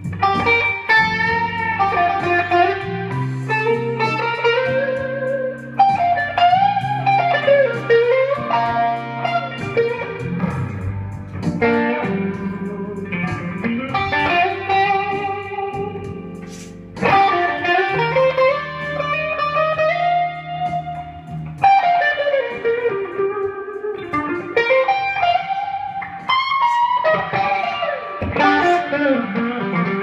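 Electric guitar, a Les Paul-style solid-body played through an amplifier, playing a blues solo with bent notes that slide up and down in pitch over held low notes.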